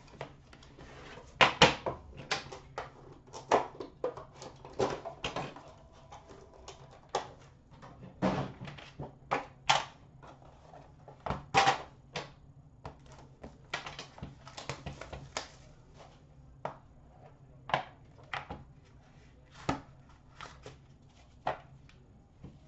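Hands opening a sealed trading-card box: a small knife cutting through the seal, cardboard scraping and sliding on a glass counter, and lids lifted off, giving irregular clicks, taps and scrapes.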